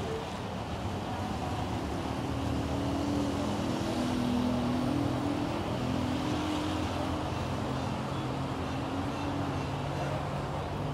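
Busy road traffic of boda boda motorcycles and cars, their engines running as they move through a junction. The engine hum grows louder for several seconds in the middle, then eases.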